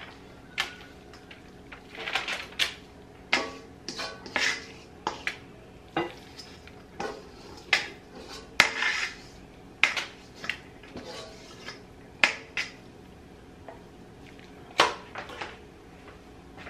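Metal kitchen tongs clanking and scraping against a stainless steel mixing bowl while cooked spaghetti is lifted out: irregular sharp metallic clanks with short ringing, quieter over the last second or so.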